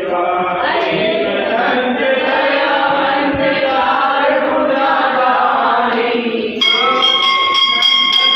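A group of devotees chanting the aarti together, many voices singing in unison. About six and a half seconds in, a steady high ringing tone starts abruptly, along with fast, evenly spaced strikes at about three a second.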